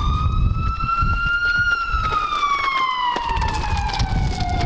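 Emergency-vehicle siren in a slow wail: the tone peaks about a second and a half in, falls steadily, and starts rising again at the very end, over a low rumble.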